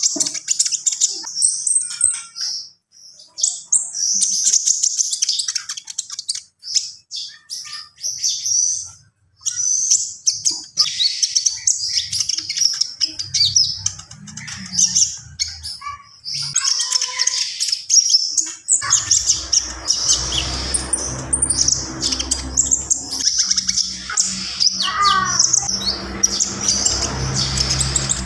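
A konin songbird singing energetically in rapid high-pitched chirping phrases with short pauses between them, its song full of mimicked calls. From about two-thirds of the way in, a steady low hum runs underneath.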